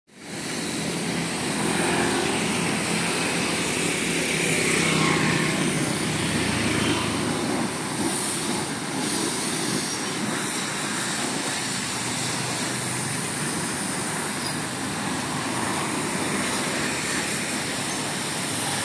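Road traffic: motorbikes and cars passing on a street, a steady hum of engines and tyres that swells briefly as a vehicle goes by.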